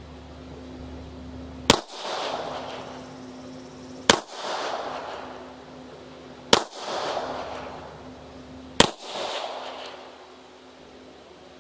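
Polish P-83 pistol firing four single shots, evenly spaced about two and a half seconds apart, each followed by a long echo.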